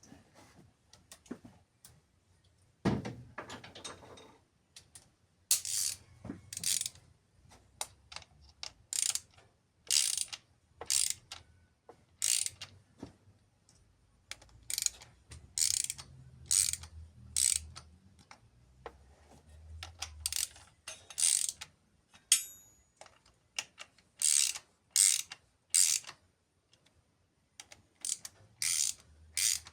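Hand ratchet wrench clicking in short repeated strokes, about one or two a second in runs with brief pauses, as fasteners are turned during engine work. A longer scraping noise comes about three seconds in.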